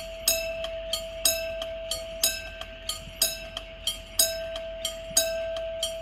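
Railway level crossing's analog mechanical warning bell ringing with the barriers down, warning of an approaching train. A loud strike comes about once a second with lighter strikes between, over a steady ringing tone.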